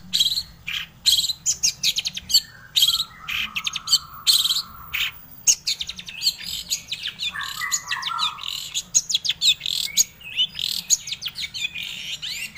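Long-tailed shrike (cendet) singing a fast, high-pitched chattering song of rapid repeated notes broken by brief pauses, over a faint low hum.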